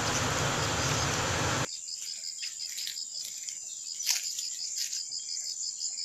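A noisy hiss cuts off suddenly about a second and a half in. Insects then trill: a steady high-pitched buzz over a rapid, even chirping, broken by a sharp click about four seconds in.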